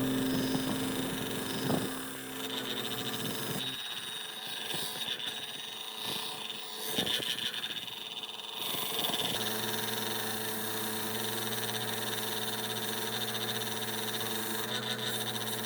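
Workshop tool sounds: a few scattered clicks and knocks, then a small electric motor starts about nine seconds in and runs steadily with an even hum.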